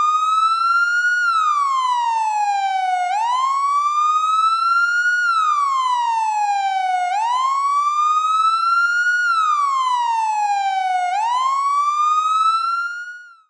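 Police car siren wailing, its pitch rising and then falling in a slow cycle of about four seconds, and fading out near the end.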